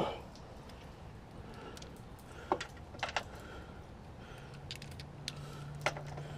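A few scattered light clicks and clinks of objects being handled, with a faint steady low hum starting about two-thirds of the way through.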